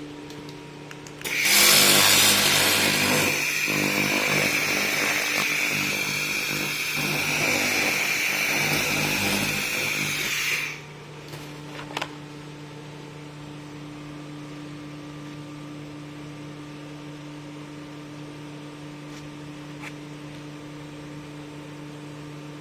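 Laser welding machine in cleaning mode, the beam firing for about nine seconds with a loud crackling hiss and a steady high whistle, then cutting off suddenly. Under it the machine hums steadily, and a click follows soon after the beam stops.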